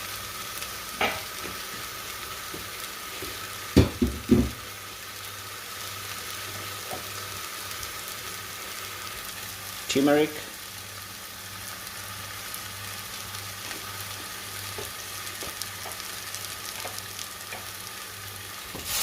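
Onions, garlic and ground spices frying in olive oil in a pot, a steady sizzle. A few sharp knocks come about four seconds in, with a lighter one a second in.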